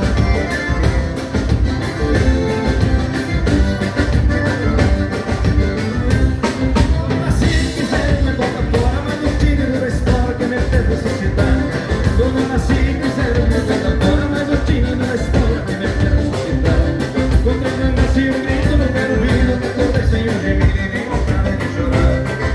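Live band playing a vanerão, a fast Gaúcho dance tune, with a steady driving beat.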